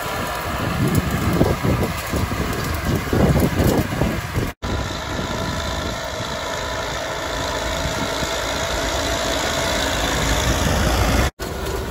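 New Holland TS100 tractor's diesel engine running steadily as it pulls a twin-rotor hay rake through cut grass, with an uneven low rumble over the first few seconds.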